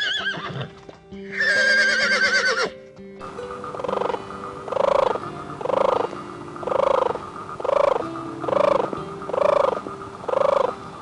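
A horse neighing, a long wavering whinny about a second in, over steady background music. After a cut, a different animal gives short calls about once a second.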